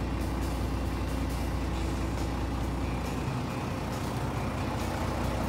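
Iseki 8020 compact tractor's engine idling steadily, an even low running sound.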